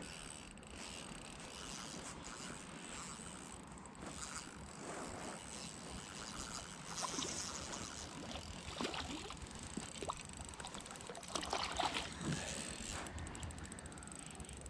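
Spinning reel being wound in, its mechanism ticking and clicking softly, with light splashing at the water's surface, loudest about two-thirds of the way through.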